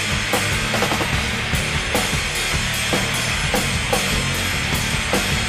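Hard rock band playing an instrumental passage without vocals: a dense wall of guitars over drums, with sharp drum hits about twice a second.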